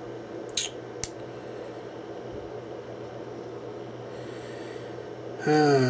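Quiet handling of unboxed packaging over a steady low room hum: two small clicks about half a second apart near the start. Near the end a man's voice gives a falling hum.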